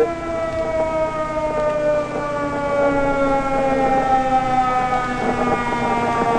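Civil-defence air-raid siren sounding steadily, its pitch sliding slowly down as it winds down.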